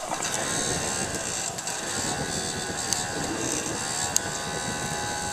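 Wood gas camp stove burning white pine on high: a steady rushing of the flame with a faint steady whine, and two sharp crackles, the louder one about four seconds in.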